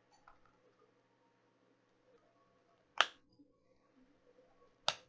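Two sharp plastic clicks, about two seconds apart, from a Blu-ray case being handled, with faint room tone between them.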